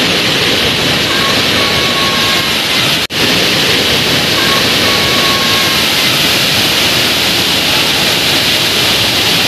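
Floodwater rushing in a loud, steady torrent as muddy water pours through debris, broken once by a short drop-out about three seconds in.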